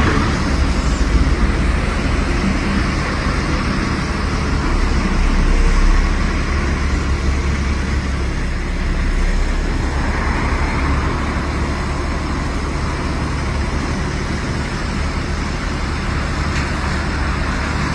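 Steady street traffic noise with a heavy low rumble, which swells briefly about six seconds in.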